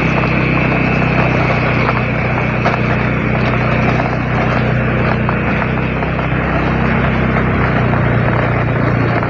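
A vehicle engine running at a steady speed, a low even hum, with a high steady tone over it that fades out about four seconds in.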